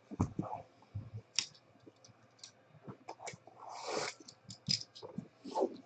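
Light scattered clicks and taps of hands handling the hard black case of a 2015 Panini Flawless Football box, with a brief rustle about four seconds in.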